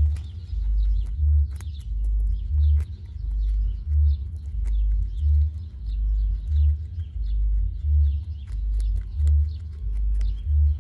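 Guinea pig nibbling a raw carrot, with small crisp crunching clicks, over a steady low thumping about three times every two seconds.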